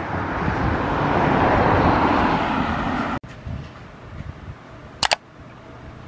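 A car passing on a street, its tyre and road noise growing louder before it cuts off abruptly. Quieter street ambience follows, with two quick sharp clicks near the end.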